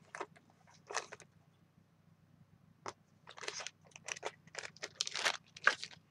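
Small clear plastic bag of gold clips crinkling and rustling as a clip is taken out of it: one short burst about a second in, then a run of crinkles in the second half.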